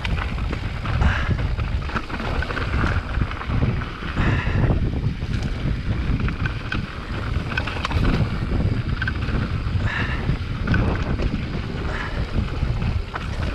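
Wind buffeting the microphone of a camera riding along on a mountain bike, a steady low rumble, with the bike's tyres running over a dirt trail and small rattles and knocks from the bike.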